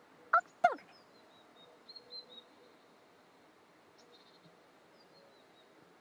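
Two short, loud calls that fall quickly in pitch, then faint high twittering birdsong with a few soft chirps about two seconds in. A sharp click at the very end.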